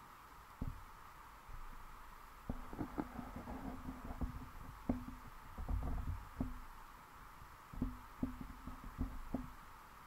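Muffled underwater knocks and low rumbles, with short low hums in between, picked up by a submerged camera. The knocks come irregularly, several a second at times, from about two and a half seconds in.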